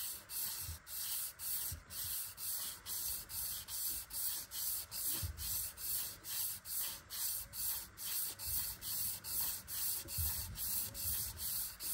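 800-grit wet-and-dry sandpaper, wet with WD-40, rubbing back and forth around a steel rod journal of an LS1 crankshaft, turned by a rag looped around it and pulled alternately from each end. The strokes come in an even rhythm of about two a second. This is the first, coarsest stage of cleaning an oil stain and light marks off the journal.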